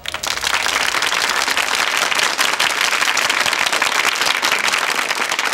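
Studio audience applauding: dense, steady clapping that starts suddenly.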